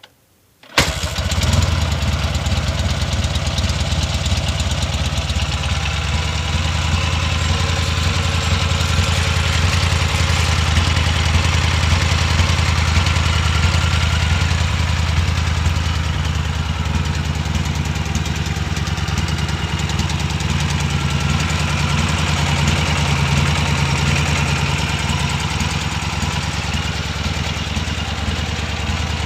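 Soviet M-72/K-750 motorcycle's side-valve flat-twin engine, fitted with K68 carburettors and run in after a rebuild, comes to life abruptly under a second in and then runs at a steady idle.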